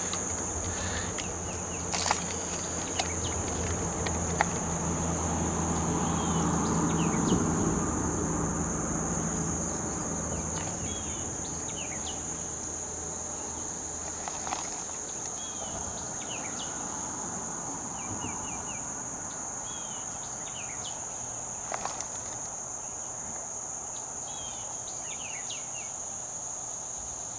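Steady high-pitched drone of an insect chorus, with faint short chirps and a few soft clicks over it. A low rumble swells and fades over the first ten seconds or so.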